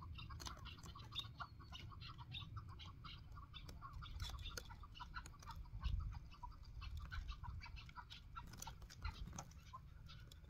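Chukar partridges calling: a long run of short, rapid clucking notes, over a low rumble, with one louder low bump about six seconds in.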